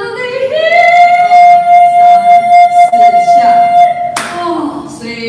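A woman's singing voice slides up and holds one steady high note for about three and a half seconds, a sustained vowel held for four counts as a vocal exercise. The note ends about four seconds in with a short, sharp noise.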